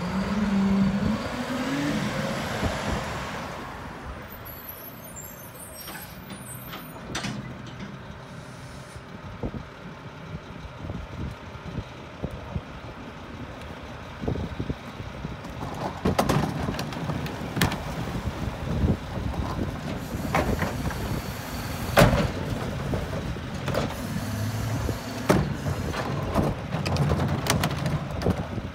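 Mack garbage truck's diesel engine revving as the rear loader pulls away, then running steadily as it rolls slowly up the street, with air-brake hiss and sharp clanks and rattles from the body in the second half.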